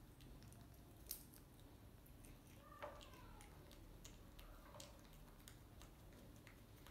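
Near silence with faint scattered clicks and soft crunches of a baby macaque picking at and chewing fruit, the sharpest click about a second in. A brief faint squeak with falling pitch comes about three seconds in.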